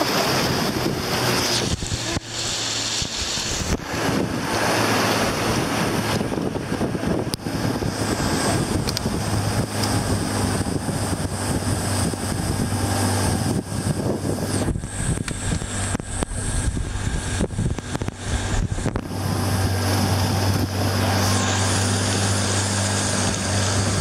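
Rushing river water and wind buffeting the microphone as an inflatable raft runs downstream through rapids. A steady low hum joins in about ten seconds in and again near the end.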